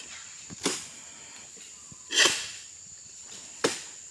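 Three sharp cracks about a second and a half apart, each with a short rustling tail, from oil palm harvesting work as fronds are cut and fall; the middle one is the loudest. A steady high buzz of insects runs underneath.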